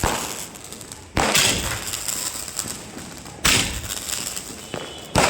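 Firecrackers going off: four sharp bangs about one to two seconds apart, each followed by a fading tail.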